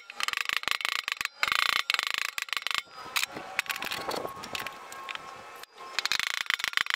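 Hammer tapping the flange of a steel door skin to fold it over the door frame: rapid, light, ringing metal-on-metal taps, several a second. About three seconds in the taps stop for quieter clinks as tools are handled and set down, and they start again near the end.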